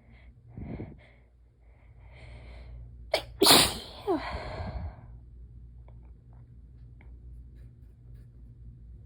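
A woman's sneeze: a few catching breaths build up over the first few seconds, then one loud sneeze about three and a half seconds in, ending in a short voice that falls in pitch.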